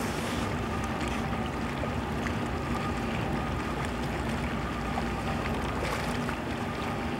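Steady drone of a ship under way, a low hum with a fainter higher tone running through it, mixed with wind and water noise.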